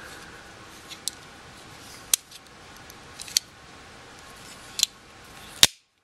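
Steel Leatherman multitool being handled: its pliers and fold-out tools give five sharp metal clicks as they are opened and folded, the last click the loudest.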